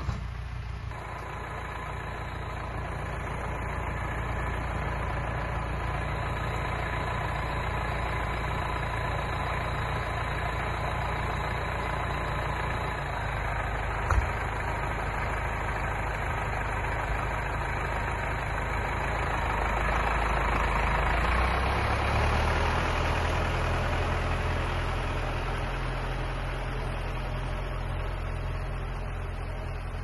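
Tractor diesel engine running steadily as it pulls a loaded log trailer past, swelling to its loudest about two-thirds of the way through and then easing off as it moves away. A single sharp knock sounds about halfway through.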